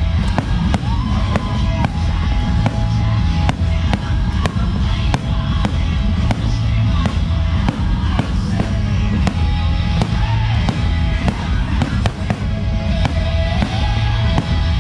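Aerial fireworks bursting in quick succession: frequent sharp bangs over a constant deep rumble, with music playing alongside.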